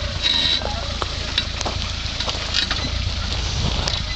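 Suzuki Samurai 4x4 creeping down a steep rocky gully, its engine a low steady rumble under scattered crackles and clicks of gravel and stones under the tyres.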